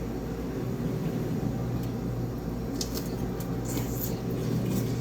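Steady mechanical hum of a household appliance in a small kitchen. From about three seconds in come a few light clicks and taps of food and a plate being handled.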